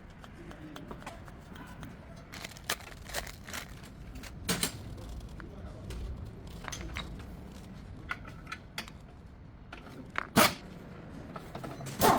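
Scattered clicks and knocks of hand tools working on a car's outer tie rod end, one every second or so, the loudest about ten seconds in.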